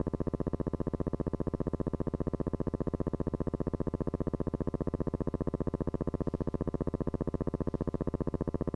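A steady electronic buzz, pulsing evenly many times a second without change.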